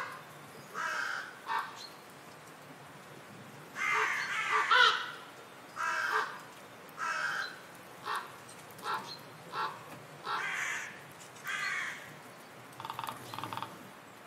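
Eurasian jay giving a string of harsh, crow-like calls, about a dozen at irregular intervals, some short and some drawn out. The loudest cluster comes about four seconds in, and a quick buzzy series comes near the end.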